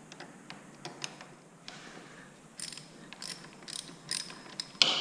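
Honda CRF250L's stock gear shift lever being worked loose on its shift shaft: scattered light metal clicks and scrapes, a quick run of clicks around the middle, and one sharp, louder click near the end.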